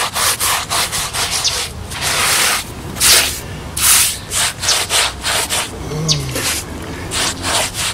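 Damp sponge rubbed back and forth over fresh rapid-set mortar patching on concrete steps, a gritty scrubbing in quick, irregular strokes with a few longer, louder sweeps. The sponge is smoothing the patch and knocking off the rough surface.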